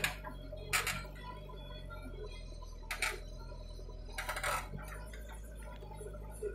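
JCB 3DX backhoe loader's diesel engine running steadily at a distance, its hum shifting as the hydraulics work the digging arm. A few short sharp sounds come through about one, three and four and a half seconds in.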